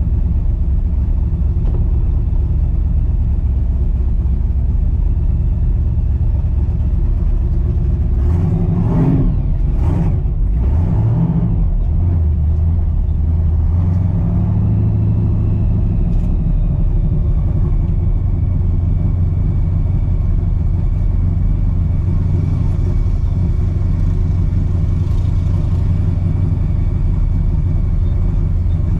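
Supercharged small-block V8 of a 1960 Corvette heard from inside the car, rumbling steadily at low speed, with a few short revs that rise and fall about eight to eleven seconds in.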